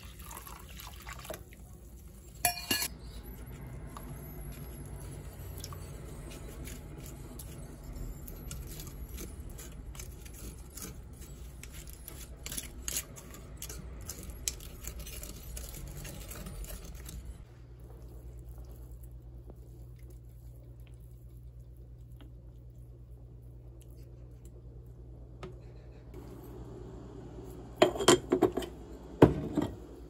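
Metal kitchen utensils clinking and knocking against a pot of boiling soup broth. About halfway through, the sound drops to a quieter steady low hum, and near the end come a few loud clattering knocks.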